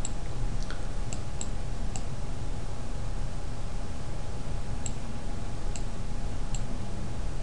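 Faint computer mouse clicks, about eight scattered single clicks with most in the first two seconds, over a steady low background hum.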